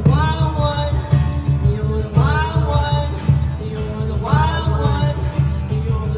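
A song with a singing voice over steady low instrumental backing; a new sung phrase starts near the beginning, about two seconds in and about four seconds in, each rising in pitch.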